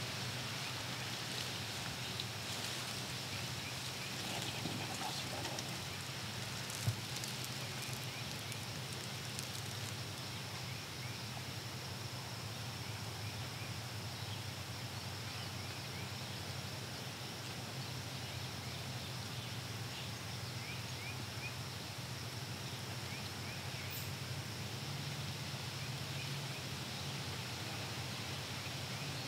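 Quiet outdoor woodland ambience: a steady hiss with a constant high thin band, and a single faint click about seven seconds in.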